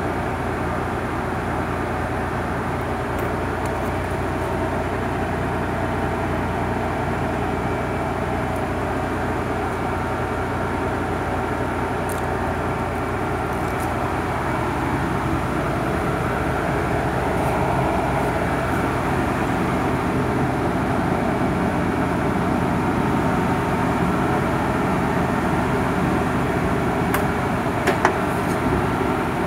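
1990 Nissan 300ZX Twin Turbo's VG30DETT twin-turbo V6 idling steadily. A couple of sharp clicks near the end.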